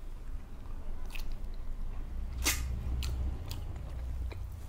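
Close-miked chewing and wet mouth smacks of people eating boiled quail eggs and rice, with a few sharp clicks, the loudest about two and a half seconds in, over a steady low hum.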